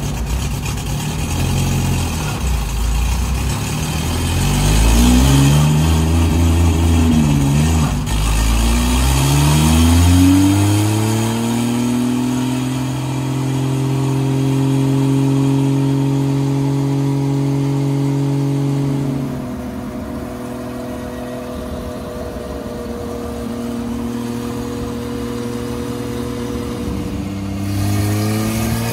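Turbocharged Toyota 2JZ straight-six running on a chassis dyno through light-load break-in pulls that bed in the abradable coating on the piston skirts. The revs waver up and down at first, then climb to a held, steady note, fall away about two-thirds of the way through as the engine decelerates, and start climbing again near the end.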